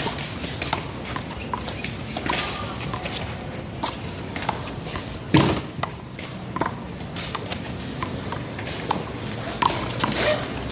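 One-wall handball play: the small rubber ball smacked by hand against the wall and bouncing on the court, a string of sharp smacks at uneven intervals, the loudest about five and a half seconds in.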